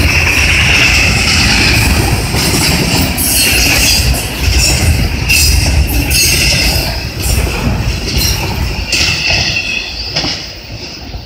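Intermodal freight train cars rolling past: a steady rumble of steel wheels on rail with repeated clacks, dropping away about ten seconds in as the last car passes.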